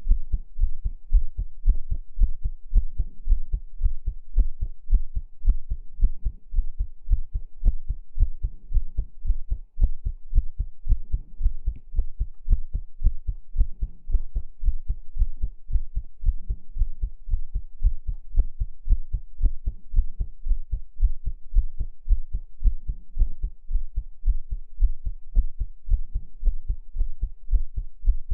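Heartbeat sounds: a steady, even rhythm of low, soft thumps, about three a second.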